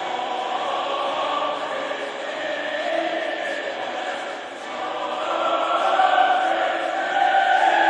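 A choir singing slow, held notes, growing louder in the second half.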